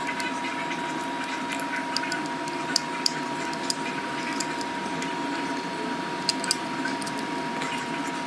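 A steady electrical hum with a constant high-pitched tone, broken by scattered light clicks and taps.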